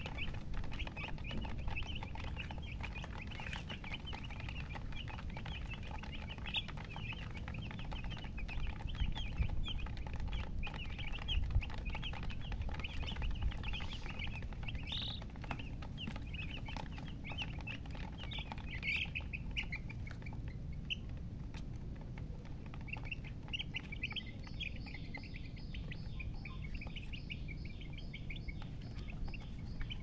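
A flock of chicks peeping, many short high calls overlapping without pause. The calls thin a little just past the middle, then pick up again near the end, over a low steady rumble.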